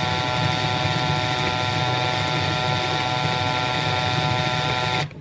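Makita drill running at a steady speed, driving the sun gear of a plastic planetary gear set while the ring gear is held still: an even whine with the gears whirring, which cuts off shortly before the end.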